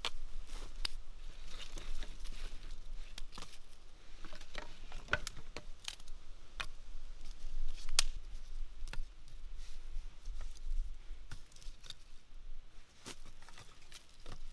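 Dry sticks clicking and knocking against one another as they are laid crosswise, one by one, into a log-cabin stack for a campfire. The knocks come at irregular intervals, the loudest about eight seconds in.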